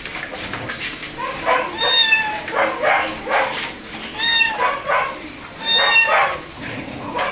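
Domestic cat meowing in distress, three long plaintive meows that rise and fall in pitch, with shorter, quieter cries between them. The crying is the cat wanting to be let down.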